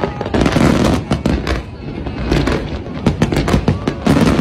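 Fireworks display going off: many sharp bangs and crackles in quick succession, with people's voices close by.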